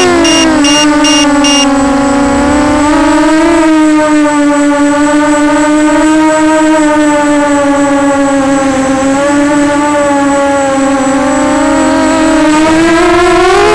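Walkera Runner 250 racing quadcopter's brushless motors and propellers whining at a steady pitch that wavers slightly and rises near the end. A rapid beeping low-battery voltage alarm sounds over it and stops about a second and a half in.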